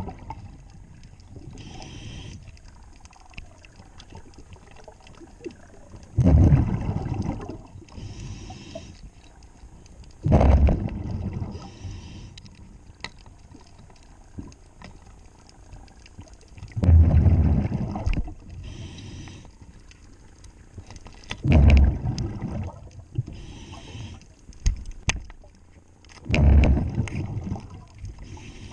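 Diver breathing through a regulator underwater: a rush of exhaust bubbles five times, about every four to five seconds, with a thinner hiss of inhalation between them.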